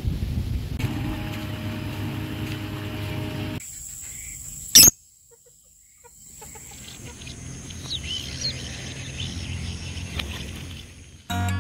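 Outdoor ambience in short cuts: a steady low hum at first, then a loud sharp click a little before halfway and a moment of near silence, then birds chirping. Acoustic guitar music starts right at the end.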